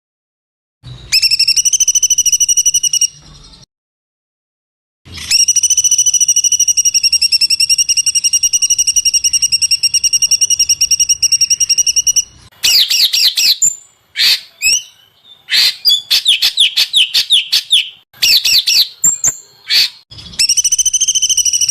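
Small songbirds singing: long, fast, tightly spaced trills, and in the middle a run of quick, varied chirps and sweeping notes.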